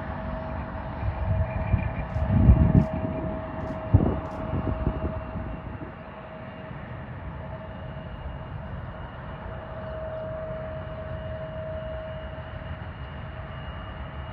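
Airliner engine noise: a steady whine over a broad rumble, with several louder low surges between about one and five seconds in.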